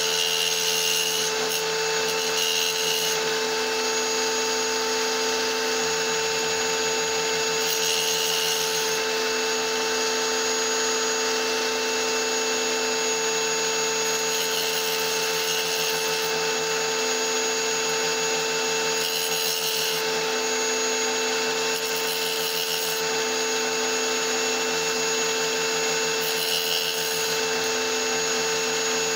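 Electric power tool motor running at a steady speed with a constant whine, while a small piece of stone is held against it to cut and shape it.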